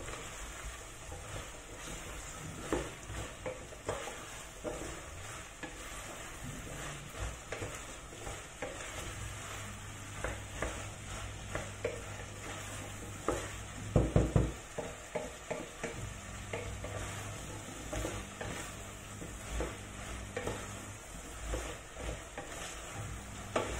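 Wooden spoon stirring and scraping cubed pumpkin in a stainless steel saucepan, with light knocks against the pot over a steady sizzle as the pumpkin sautés before water goes in. A short run of louder knocks comes about halfway through.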